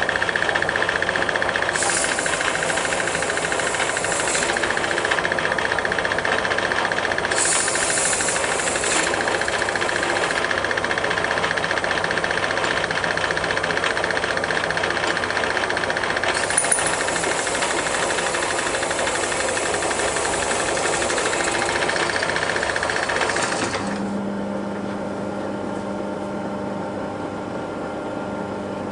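Metal lathe running with a steady high whine while a cutting tool faces the front of a cast flywheel, with stretches of hissing cutting noise. About 24 seconds in the whine and cutting noise stop, leaving a quieter low hum.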